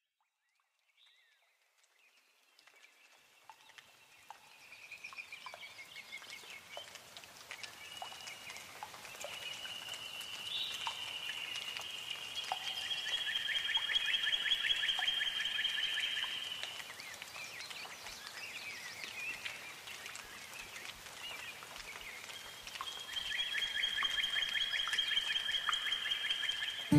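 Outdoor animal chorus of rapid high trills, fading in from silence and swelling and easing in long waves over a faint hiss.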